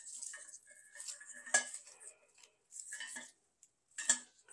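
Stiff berry branches rustling and clattering against a pewter pitcher as they are pushed into it, with several sharp clinks of the stems on the metal.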